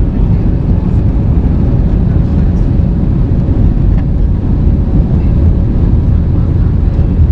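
Airbus A321 jet engines at takeoff-climb thrust heard inside the cabin, a loud steady roar of engine and rushing-air noise with a faint steady tone running through it.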